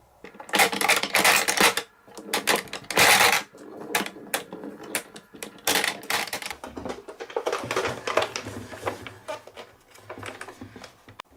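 Marbles rolling and clacking down a marble run: dense rattling runs of clicks and knocks, loudest in the first few seconds, then sparser taps and rolling.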